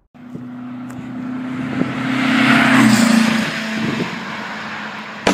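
A motor vehicle's engine passing by. A steady engine note swells to its loudest about three seconds in, drops a little in pitch, then fades.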